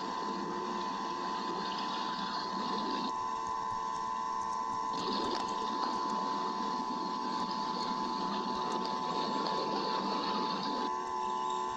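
Steady hiss with a constant whining tone from the nest camera's audio feed, with no distinct event standing out.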